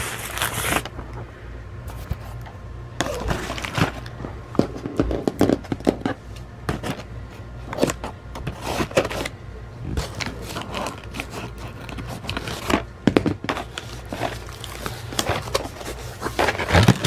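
Cardboard box being handled and opened: flaps scraping and crinkling, with scissors cutting through the cardboard and tape. Irregular scrapes, rustles and clicks.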